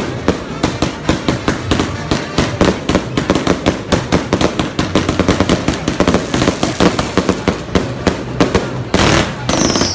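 Fireworks going off: a rapid, continuous run of crackling pops from firecrackers and aerial shells. Near the end comes a rushing hiss, then a falling whistle.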